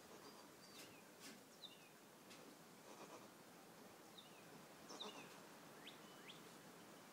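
Near silence, with faint short bird chirps now and then, each a quick falling note.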